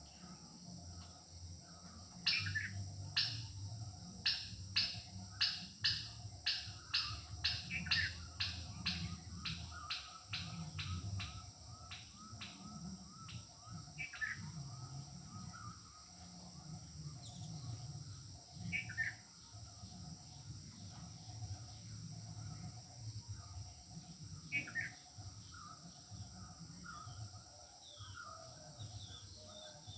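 Birds calling: a run of sharp chirps that speeds up for about ten seconds and then thins to a few single chirps, over a low call repeated steadily. A steady high insect drone runs underneath.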